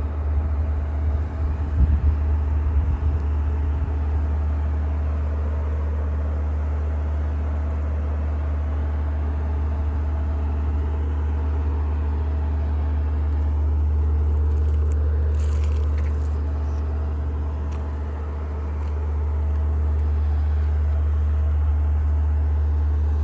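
A steady, deep droning hum with fainter steady tones above it, swelling and easing slightly. There are a few brief crackles about fifteen seconds in.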